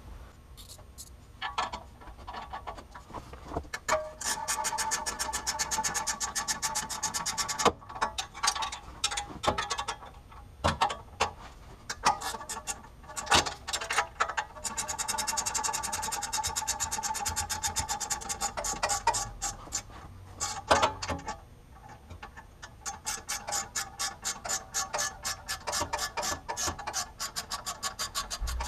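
Ratcheting wrench clicking in fast, even runs of several seconds while the exhaust mid-pipe-to-downpipe flange bolts are worked loose. Separate metallic knocks come between the runs.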